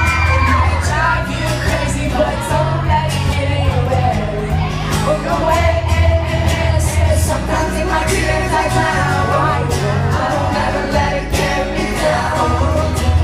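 Live acoustic pop band performance: singing over acoustic backing, with sustained low bass notes and a steady strummed or beaten pulse throughout.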